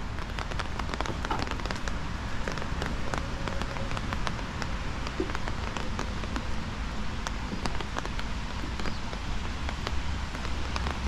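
Rain falling, with many separate drops ticking sharply and irregularly over a steady hiss and a low steady rumble.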